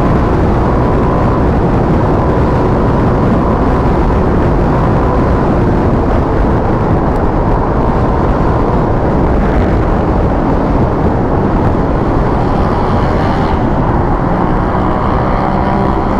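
Steady wind rush and engine drone from a motor scooter ridden at an even pace along a road, picked up by the rider's own camera.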